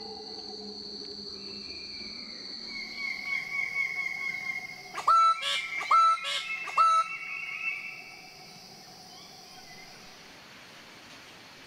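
A bird-of-paradise gives three loud, sharp calls about a second apart, over steady high insect-like trilling that fades out shortly after.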